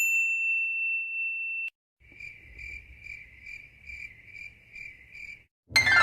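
A steady high-pitched beep that cuts off sharply, then a cricket chirping sound effect of evenly spaced chirps, about two and a half a second. Near the end a loud new sound with a falling pitch begins.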